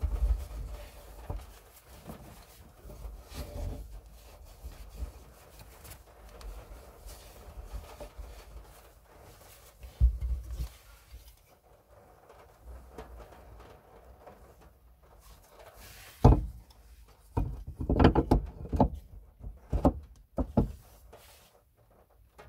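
A cloth rubbing over the tailgate's metal around the switch opening, with low bumps. Later comes one sharp click, then a run of clicks and knocks as the plastic boot-opening switch and handle unit is handled and pressed into the opening.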